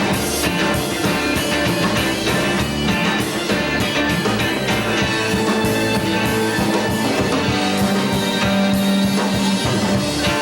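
Rock band playing live: electric guitar over bass and drums with a steady beat.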